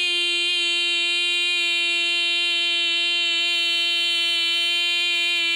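A young person's voice holding one long, unbroken "boy" note at a steady high pitch: the drawn-out end of a "yeah boy" shout.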